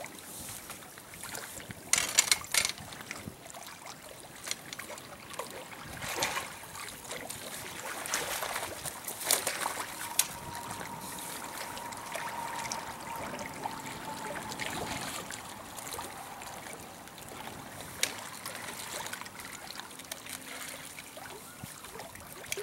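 Water trickling and lapping at a rocky riverbank, a steady hiss, with several sharp clicks and knocks scattered through it and a faint steady whine for a few seconds midway.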